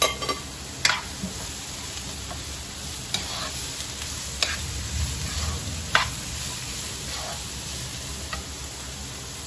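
Chopped shallots frying in coconut oil in a nonstick pan with a steady sizzle, stirred with a plastic spatula. The spatula knocks sharply against the pan about six times.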